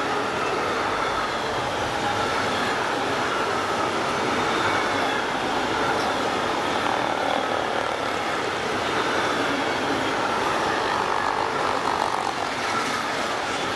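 Intermodal freight train wagons carrying semi-trailers and containers rolling past close by: a steady rush of wheels on rail, with faint high wheel tones drifting slightly in pitch.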